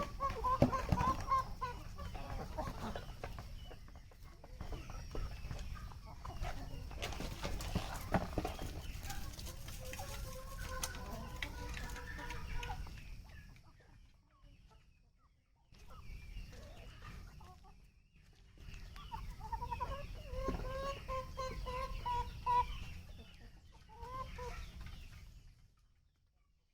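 Desi (country) chickens clucking and giving warbling calls in several bouts, with a brief lull about halfway, fading out near the end.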